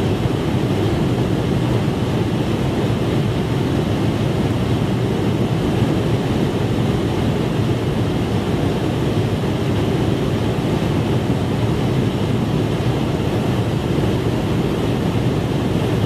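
Steady rushing roar of jet aircraft in flight, airflow and engine noise with no change in pitch or level.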